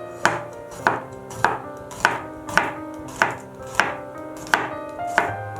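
Knife chopping peeled garlic cloves to mince them, in steady strikes a little under two a second.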